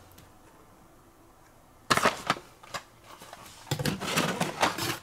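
Carded Hot Wheels die-cast cars being handled: crisp rustling and clicking of cardboard backing cards and plastic blisters. It starts suddenly about two seconds in after a quiet stretch and is busiest near the end.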